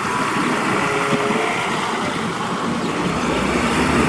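Steady rushing, hissing noise of a muddy toy bus being washed clean.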